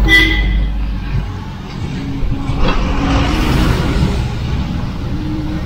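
Mahindra Scorpio SUV driving, with engine and road noise heard from inside the cabin as a steady low rumble. A short high tone sounds right at the start, and there is a brief knock about two and a half seconds in.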